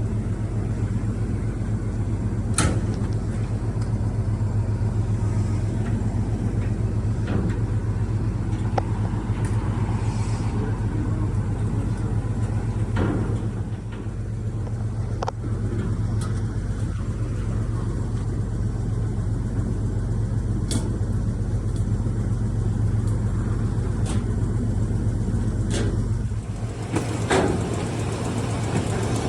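Motor vehicle running steadily, a continuous low hum of engine and road noise, with a few light clicks and knocks scattered through; the deepest part of the hum drops away near the end.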